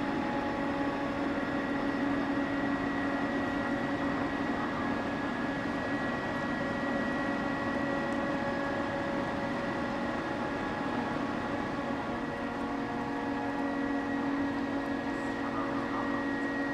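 Steady mechanical drone of the moored passenger Ro-Ro ferry Suzuran's on-board machinery, a constant hum with several steady tones over it and no change in pitch.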